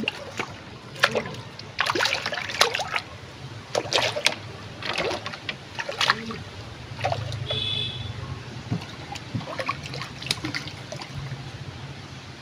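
Hooked fish thrashing at the water's surface beside a wooden boat: a run of irregular sharp splashes over the first six or seven seconds, then dying down as the fish is drawn in on the line.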